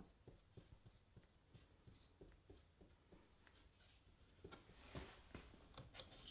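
Faint, light dabbing and scraping of a small paintbrush spreading glue on the back of an ebony fretboard, with a cluster of louder taps and knocks about five to six seconds in as the brush is put down and the fretboard is picked up and handled.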